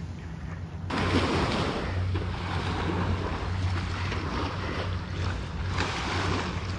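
Small sea waves washing up on a sandy beach at the shoreline, with wind rumbling on the microphone.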